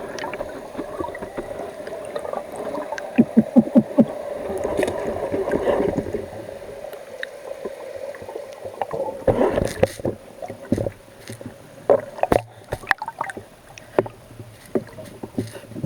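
Water noise with a steady low hum, broken by irregular knocks and clicks, thickest in the second half. A short run of low pulses comes about three to four seconds in.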